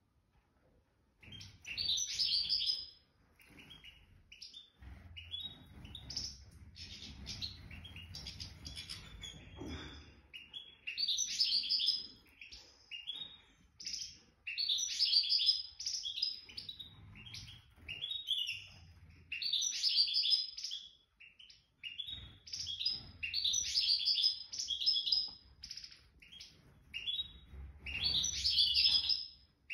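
European goldfinch singing: repeated bursts of rapid twittering phrases with short pauses between them, over a faint low rumble at times.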